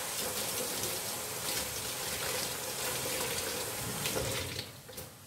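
Water running from a tap in a steady rush, shut off about four and a half seconds in.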